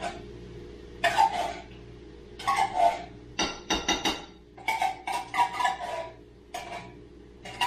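Metal kitchenware clinking and scraping in an irregular run of short strokes, with a brief metallic ring about three and a half seconds in, over a steady low hum. This fits handling the can of cream of chicken soup and the pan.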